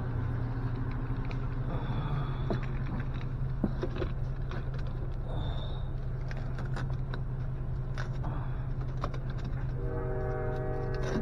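Clicks and knocks of fishing gear being handled and loaded into a car's cargo area over a steady low hum. About ten seconds in, a horn-like chord of several steady tones sounds.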